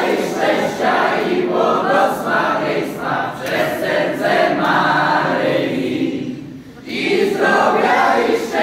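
A roomful of people singing together in unison, with a short break about six and a half seconds in.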